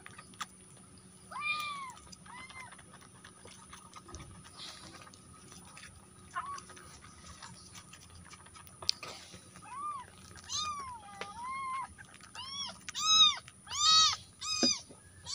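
A young kitten meowing repeatedly while being bottle-fed, short calls that rise and fall in pitch. A few scattered meows at first, then they come faster and louder over the last few seconds.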